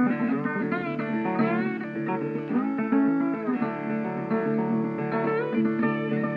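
Background music of plucked acoustic guitar playing a continuous melody, with notes that bend in pitch.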